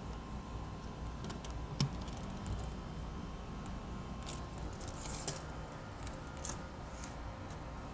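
Faint, scattered light clicks and taps of hand work, such as handling masking tape and marking a workpiece, over a low steady room hum.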